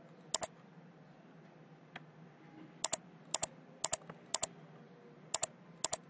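Computer mouse clicking in quick double clicks: one double click about half a second in, then six more about half a second apart from about three seconds in. A faint low hum lies underneath.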